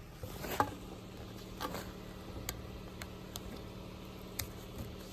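Makeshift wire-mesh field gate being handled and dragged shut by its wooden posts: scattered sharp clicks and light rattles of the wire, the loudest about half a second in. A car engine runs steadily underneath.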